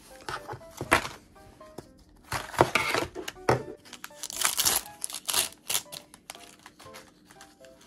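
Plastic capsule packaging crinkling and tearing in handling, in irregular bursts, loudest about halfway through.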